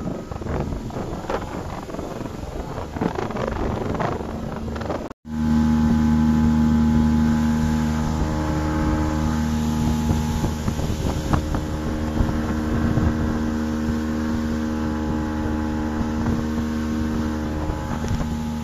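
Motorboat engine running at speed, with wind buffeting the microphone and water rushing past. About five seconds in, a sudden cut leaves a louder, steady, even engine hum heard from inside the boat.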